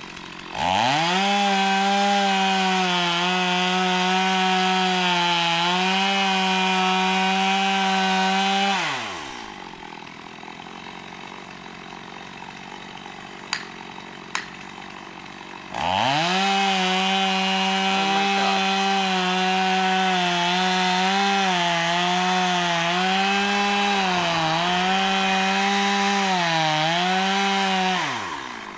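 Stihl chainsaw run at full throttle through two long cuts into a pine tree. The engine speed dips each time the chain bites and drops back to idle between cuts, with two sharp clicks in the pause.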